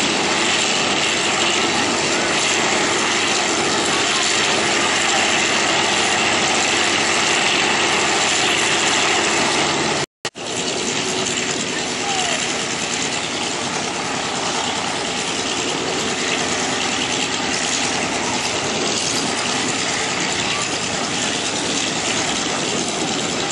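Radial piston aircraft engines running steadily. The sound drops out suddenly for a moment about ten seconds in.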